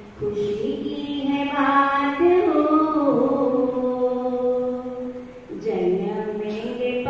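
A woman's voice chanting a devotional song through a microphone and loudspeakers, in long held notes that step up and down in pitch, with a short break for breath about five and a half seconds in.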